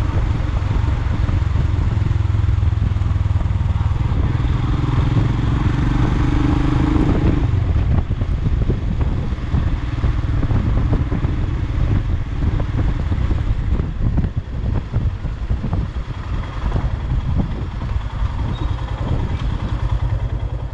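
Motorcycle engine running while the bike is ridden along a city street. About four seconds in the engine note climbs under throttle, then falls off suddenly a few seconds later, and the bike runs on more evenly after that.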